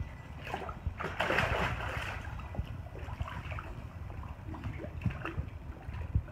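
A dog launching off the pool steps into the water with a splash about a second in, then lighter sloshing and splashing of water as it paddles.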